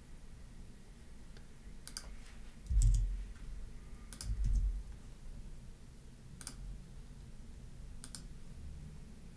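A few scattered clicks of a computer keyboard and mouse, with two dull low thumps about three and four and a half seconds in.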